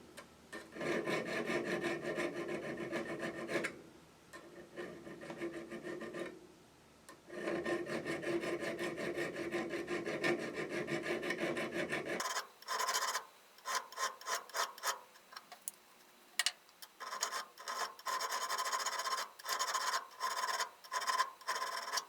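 Coarse diamond hone rubbing on the steel cutter wings of a brace auger bit, shaping them. It starts as two long runs of steady rubbing with a pause between, and from about halfway it changes to quicker, short separate strokes with brief gaps.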